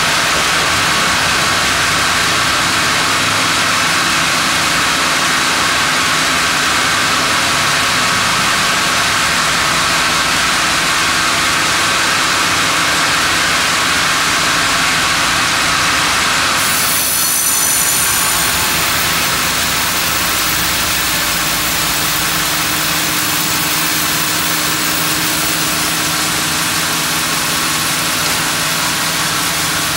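Large industrial band sawmill running steadily while its carriage carries a monkeypod (rain tree) log through the blade. The high hiss changes about 17 seconds in.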